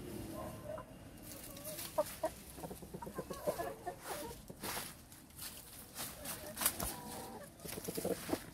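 Chickens clucking: many short, low calls scattered throughout, with brief rustling noises among them.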